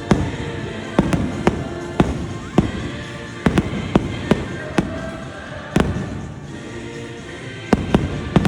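Fireworks shells bursting in a string of sharp bangs at uneven intervals, with a lull in the middle, over show music with a choir playing on loudspeakers.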